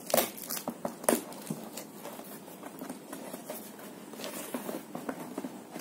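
Cardboard box being handled and worked open by hand: a few sharp knocks near the start and about a second in, then light, irregular scratching and tapping on the cardboard.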